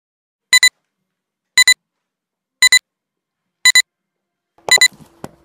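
Electronic countdown beeps: five short double beeps, one each second, high and sharp, ticking off the countdown. Near the end a faint low hum and a click come in.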